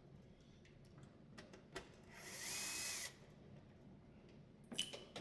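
Cordless drill/driver spinning up for about a second, its motor pitch rising then holding steady, as a screw is backed out of a dishwasher panel, with a few handling clicks before and after.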